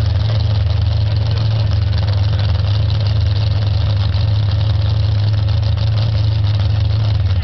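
Mud-bog pickup truck's engine idling steadily, a low even hum with no revving.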